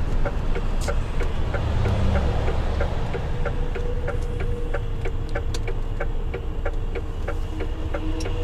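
Semi-truck's diesel engine running slowly with a low rumble, heard from the cab, over the steady ticking of the turn-signal indicator at about three ticks a second. A faint steady whine comes in about halfway.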